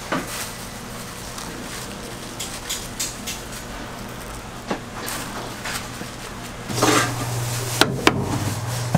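Stall kitchen clatter over a steady low hum: light clicks and clinks of utensils and dishes. Near the end it grows louder, with a metal spoon stirring and knocking against a stainless steel bowl of frying batter.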